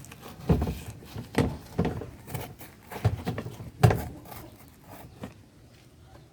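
Irregular knocks and clatter from work on a washing machine's pulsator, about ten hits with the loudest near four seconds in, dying away near the end.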